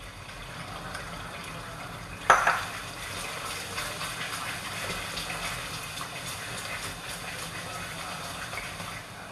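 Wooden spatula stirring a thick tomato-chili sauce in a metal wok, scraping against the pan over a steady hiss, with one louder knock about two seconds in.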